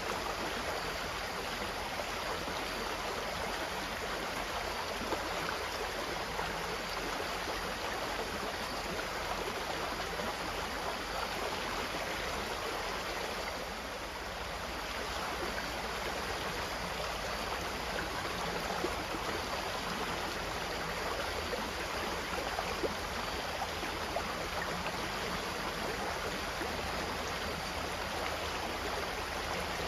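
Steady running water, like a flowing stream, with a slight dip in level about halfway through.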